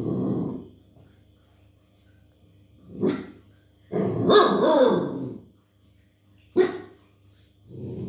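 Dog barking: three short, sharp barks a few seconds apart, each followed by a longer, lower drawn-out growling sound.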